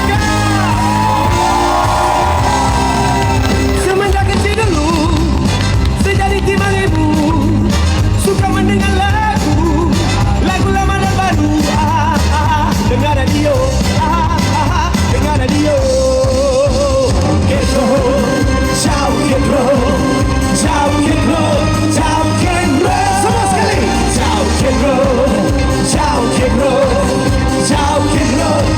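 Live pop-rock band playing with a lead vocalist singing over a steady bass beat.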